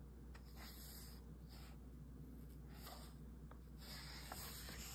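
Near silence with faint rustling and rubbing of paper as a picture book's pages are handled.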